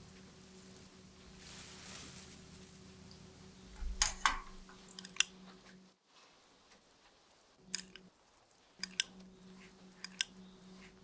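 Steady low electrical hum with scattered short, sharp clicks and soft wet taps, the loudest a close pair about four seconds in; the hum drops out for a couple of seconds about six seconds in.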